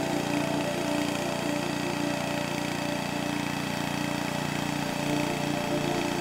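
Small gasoline engine of a log splitter running steadily at an even pitch.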